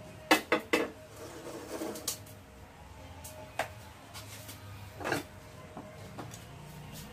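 Kitchenware clatter: a plate knocking three times in quick succession just after the start as it is set down by the wok, then a few single light clinks and knocks as the wok is shifted on the stove.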